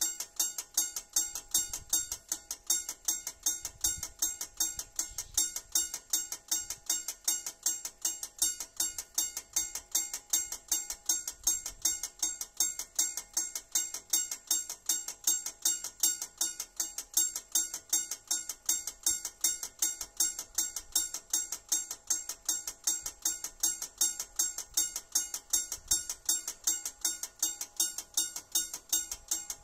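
Railway level crossing warning bell ringing at a steady, even rate of about three strokes a second, signalling an approaching train.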